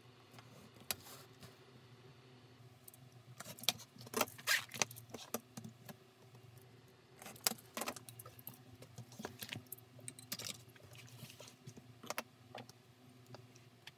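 Steel ruler and craft knife being handled on a cutting mat: scattered metallic clinks and scrapes as the ruler is set down and shifted and the knife cuts leather along it, in several short clusters, over a low steady hum.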